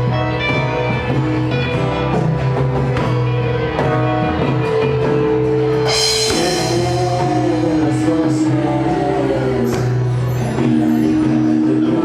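Live psychedelic rock band playing, with guitar and drum kit and a cymbal crash about halfway through.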